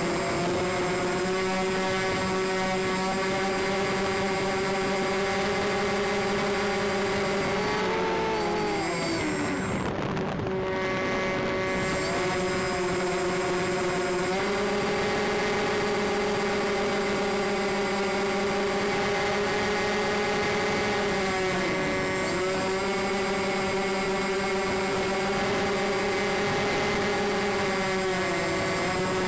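Motors and propellers of a model C-124 Globemaster aircraft in flight, heard from a camera mounted on board: a steady, multi-toned drone with a thin high whine. The pitch sags and recovers with throttle changes, easing off briefly about ten seconds in and dipping again twice near the end.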